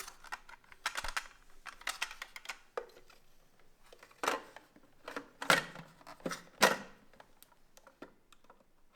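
Irregular plastic clicks, knocks and short scrapes of a cordless wet-dry floor cleaner's parts being handled, such as its HEPA filter and housing, with a few louder knocks in the middle.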